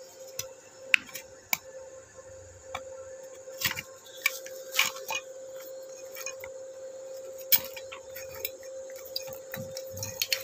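Scattered sharp clicks and taps from a stick-welding electrode holder and rod being handled against a steel test plate, over a steady high whine; no welding arc is running.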